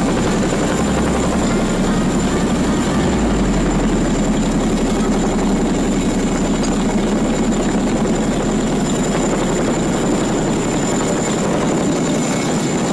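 Boeing CH-47 Chinook tandem-rotor helicopter hovering close overhead: a loud, steady rotor beat with a thin, constant high whine.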